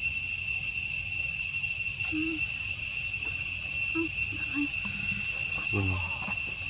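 Insects droning in a steady, high-pitched, unbroken buzz.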